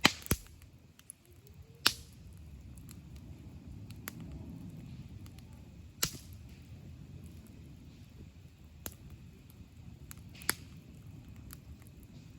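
Wood campfire burning with a low steady rush, broken by sharp pops and snaps of the wood every few seconds, loudest right at the start and about two and six seconds in.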